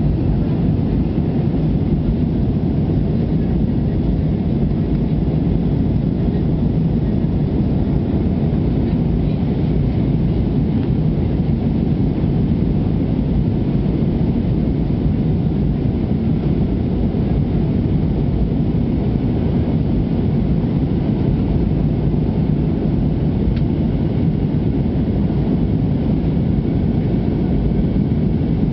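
Airbus A320 cabin noise at a window seat during the climb after take-off: a steady low rumble of jet engines and rushing air, unchanging in level.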